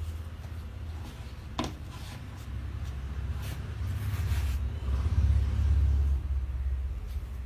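A steady low rumble that swells about four seconds in, with a few light taps and rustles as a block of floral foam and sprigs of leaves are handled.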